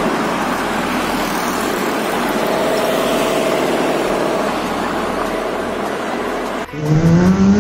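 Road traffic: a steady hiss of tyres and car engines passing. Near the end the sound cuts abruptly to a single engine revving, its pitch rising.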